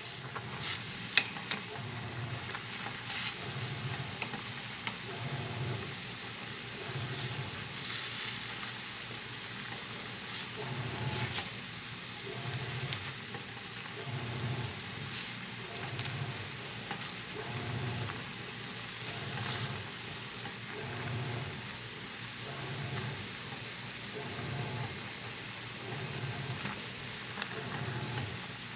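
Water at a rolling boil in a stainless steel pot, bubbling steadily, while metal tongs stir and lift noodles. The tongs give off sharp clicks and scrapes against the pot at irregular moments, the loudest about a second in and near the two-thirds mark.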